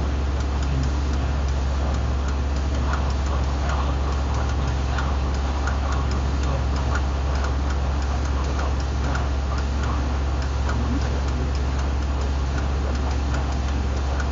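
Electrodynamic vibration test table running a random vibration test: a steady low hum with quick, irregular small ticks and rattles throughout.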